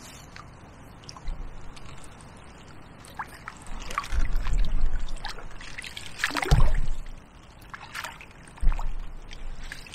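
Landing net moving in shallow river water as a barbel is released from it: water splashing, sloshing and trickling off the mesh, with a few dull knocks, the loudest about six and a half seconds in.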